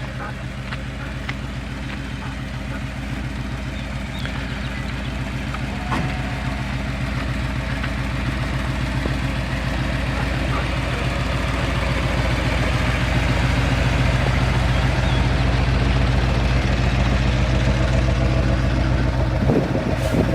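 A motor vehicle's engine running steadily, growing gradually louder as it goes.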